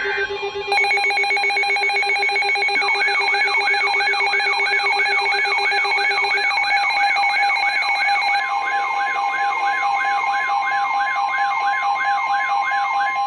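Emergency Alert System attention signal: loud steady electronic alert tones, joined a few seconds in by a fast warbling, siren-like sweep repeating several times a second, with further steady tones coming and going, all cutting off at the end.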